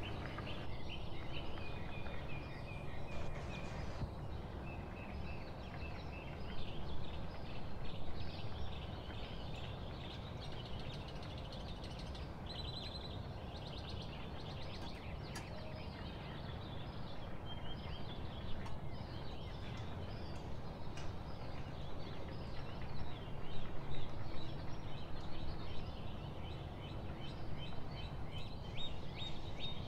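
A pot of water bubbling at a boil, a steady low bubbling, with birds chirping in the background.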